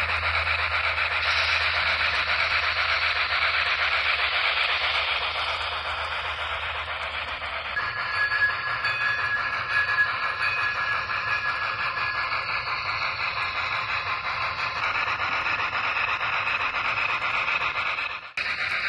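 Onboard sound system of an N-scale USRA Pacific steam locomotive model, playing steam locomotive sounds through its small speaker as it runs: mostly a steady hiss. About eight seconds in, a thin steady tone sounds for a few seconds.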